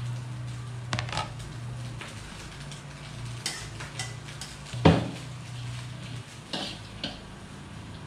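Onion and vegetables frying in a wok over a gas burner, sizzling, with metal utensils clinking and scraping against the wok and one loud knock about five seconds in.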